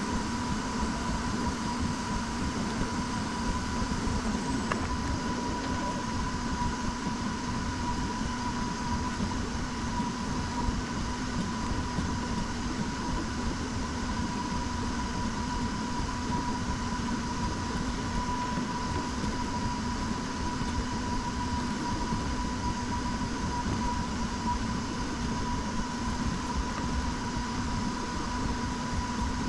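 A machine running steadily: a constant hum with a steady high whine, unchanging throughout.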